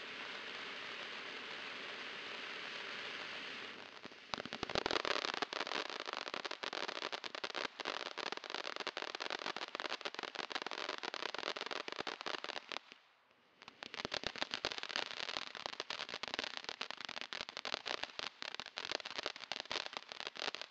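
A 200-gram consumer firework fountain burning. It hisses steadily for about four seconds, then switches to a dense crackling effect. The crackle breaks off briefly just after midway, then picks up again.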